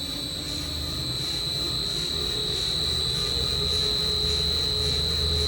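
Belt-driven HVAC air handler running steadily on freshly realigned pulleys, a low hum from the blower and motor with no belt squeal, judged way better after the alignment. A steady high-pitched tone sits over it.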